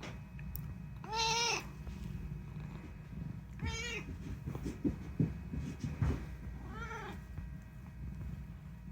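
Domestic cat meowing three times, each meow a short call that rises and falls in pitch, the first the loudest. A few soft knocks come between the second and third meows.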